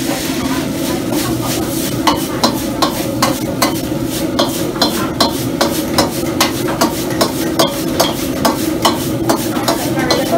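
Wok stir-fry: a metal ladle stirring fried rice in a steel wok, knocking and scraping against the pan in a steady rhythm of about two to three strikes a second from about two seconds in, with the rice sizzling over a steady rushing noise.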